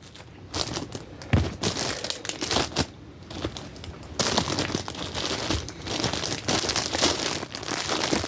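Rustling and crinkling of a backpack and packaged gear being handled as items are stuffed into its pockets, irregular and getting busier about halfway through.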